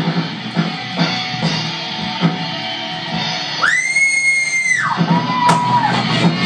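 Live rock band playing, with electric guitars and a drum kit keeping a steady beat. A little past halfway the band drops out under a high held note that bends up at its start and falls away after about a second, followed by a shorter, lower held note before the full band comes back in.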